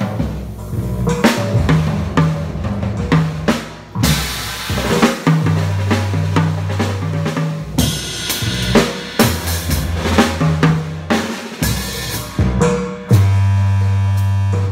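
Live drum kit played with sticks, snare and cymbal hits, over a looping synth bass line from a Korg Kaossilator. Near the end the drumming stops and a held low synth note sounds on its own.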